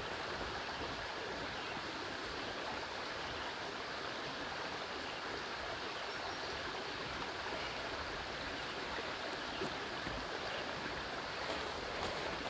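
Steady, even outdoor rushing noise with no distinct events, of the kind made by water or surf on a shore.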